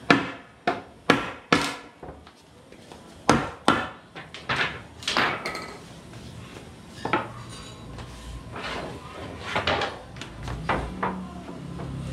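Hammer blows on wooden planks: four quick strikes in the first second and a half, a second cluster a couple of seconds later, then scattered single knocks.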